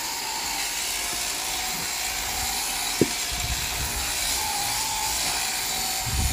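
Electric sheep-shearing handpiece running steadily as it cuts through a ewe's fleece, with a sharp click about three seconds in and a few low knocks near the end.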